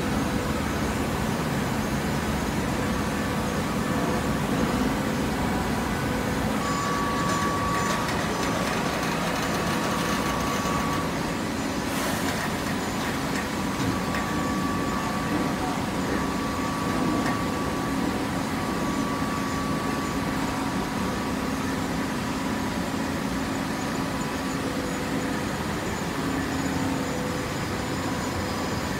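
Automatic horizontal hydraulic baler and its feed conveyor running: a steady mechanical drone with several steady hums, and a higher whine that comes and goes. There is one sharp click about twelve seconds in.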